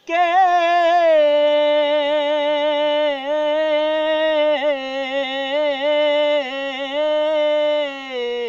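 A man singing Punjabi Sufi kalam unaccompanied, holding one long note with small wavering turns and ornaments. The pitch drops slightly near the end.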